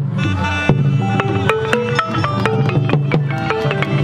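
Khmer pinpeat orchestra playing a lively instrumental passage: quick runs of short struck pitched notes over steady drum strokes.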